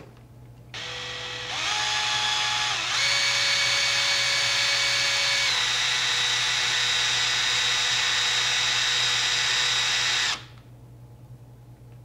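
Cordless drill on its lowest setting driving the screws of a smart lock's mounting plate. The motor whine starts about a second in, steps up in pitch twice, runs steady with a slight drop in pitch midway, and stops suddenly about ten seconds in.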